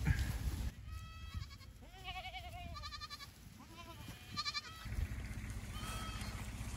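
Several goats bleating, about six short calls at different pitches, some high, each with a wavering quiver.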